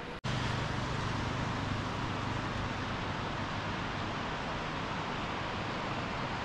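A vehicle on the move: a steady low engine hum under an even rush of road and wind noise.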